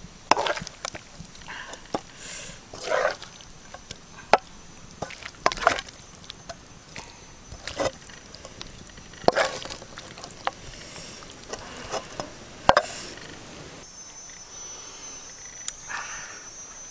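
Spatula scraping and knocking against a wok as snail curry is stirred and scooped out, in irregular clatters and scrapes. Near the end the clatter stops and a steady high buzz comes in.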